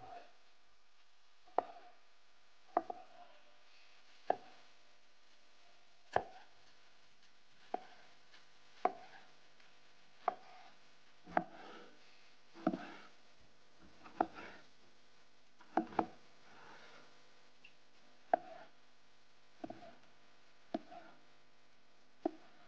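Kitchen knife slicing a tomato on a wooden cutting board: slow, separate knocks of the blade on the board, about seventeen strokes, one every second or so.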